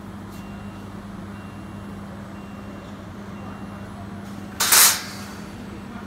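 Fiber laser cutting machine standing idle with a steady low electrical hum and a faint high beep repeating about twice a second. About two-thirds of the way in, a short loud hiss cuts in for under half a second.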